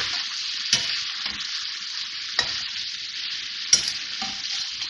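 Chicken pieces and ginger-garlic paste sizzling in hot oil in a karahi, with a steady hiss, as a metal spatula stirs them and knocks against the pan three times.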